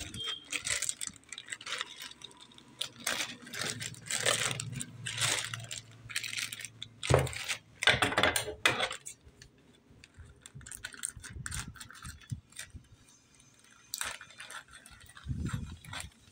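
Plastic courier mailer bag crinkling and rustling in short, irregular crackles as it is handled and pulled open.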